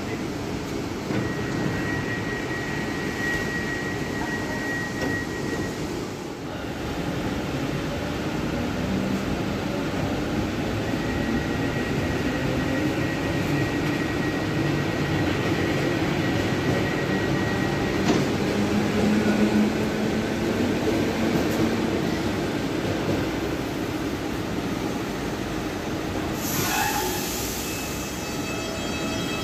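EG2Tv 'Ivolga 2.0' electric train pulling away from the platform: a steady rail rumble, with a motor whine that rises in pitch as it picks up speed. Near the end comes a short hiss, then a steady pitched tone.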